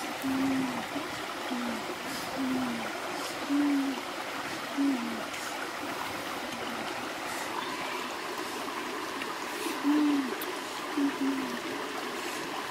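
Shallow rocky stream running steadily over stones. Short low pitched notes, each dipping in pitch at its end, come about once a second in the first few seconds and again around ten seconds in.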